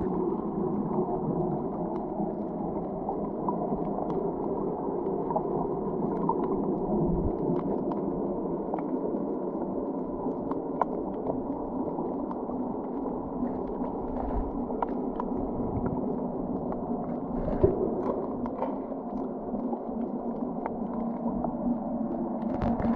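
Muffled underwater sound: a steady dull rush of water with scattered faint clicks and crackles, and one sharper click about three-quarters of the way through.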